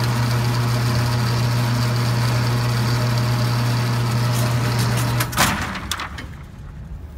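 Vehicle engine idling with a steady low hum. About five seconds in there is a sharp click and the engine sound stops.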